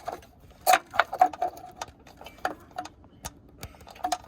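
Small plastic clicks and taps of hands working heat-shrink tubing over a twisted wire splice in a headlight harness: a quick cluster about a second in, then scattered single clicks.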